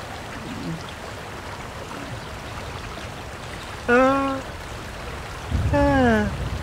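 A man's voice gives two short drawn-out exclamations a couple of seconds apart, the second falling in pitch, over a steady rushing background noise. A low rumble comes in near the end.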